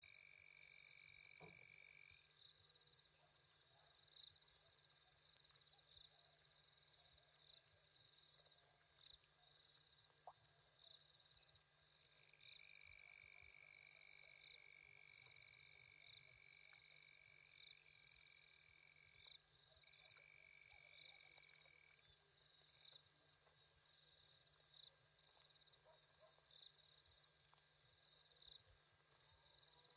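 Faint night chorus of calling animals: a high, fast, even pulsing that runs throughout, with a steady lower trill heard for the first two seconds and again for about ten seconds in the middle.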